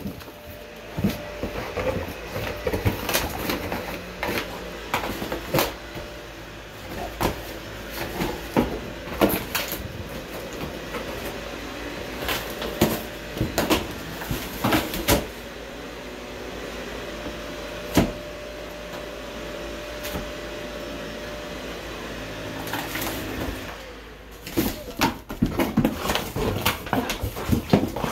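Gordon Setter tearing and chewing apart a cardboard box: irregular sharp rips, cracks and crunches of cardboard, some of them loud. A faint steady hum runs underneath and stops about 24 seconds in.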